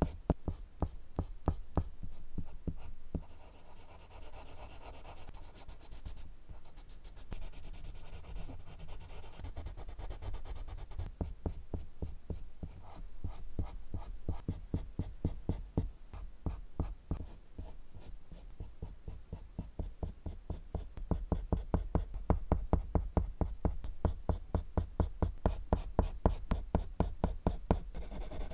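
Colored pencil scratching on drawing paper in quick, repeated back-and-forth shading strokes, about three a second, growing louder near the end.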